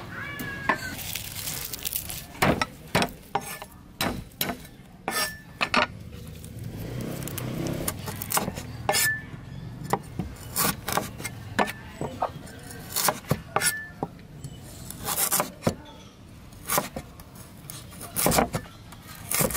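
Cleaver chopping galangal on a wooden cutting board: irregular sharp knocks, about one or two a second, with a few short pauses.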